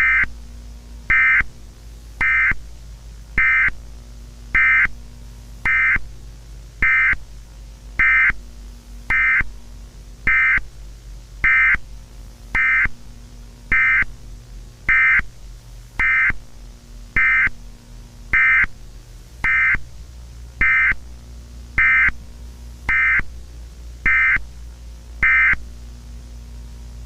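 Emergency-alert warning tone: a high electronic beep, each about half a second long, repeating evenly a little slower than once a second and stopping shortly before the end, over a steady low hum.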